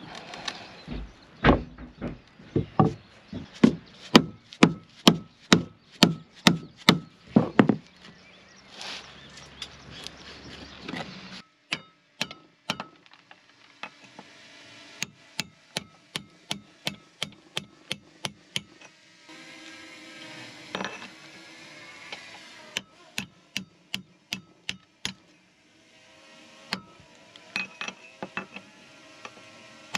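Hammer blows: a fast run of heavy strikes, about two or three a second, for the first eight seconds, then lighter, ringing strikes in bursts. They are knocking the windlass and its base plate loose from the boat's deck.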